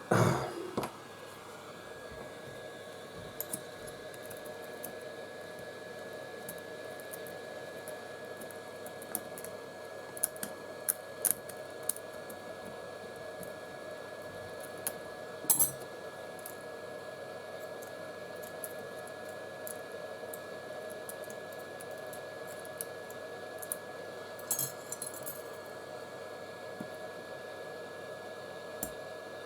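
Scattered sharp clicks and small clinks of a metal prying tool chipping shattered back glass off a phone, over a steady faint hum.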